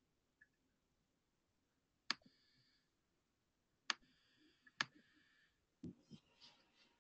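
Near silence broken by sharp clicks about two, four and five seconds in, each with a short ringing tone after it, then a few duller knocks near the end, heard over a conference-call line.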